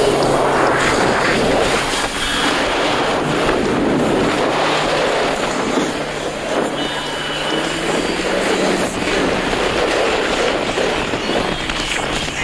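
Yamaha WaveRunner personal watercraft under way: wind rushing over the microphone and water hissing from the hull, over a faint engine hum whose pitch rises gradually about halfway through.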